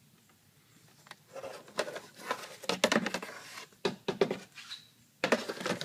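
Plastic engine cover of a BMW N62 V8 being lifted off and handled, with irregular clattering and knocking of hard plastic against the engine bay, in several clusters from about a second in.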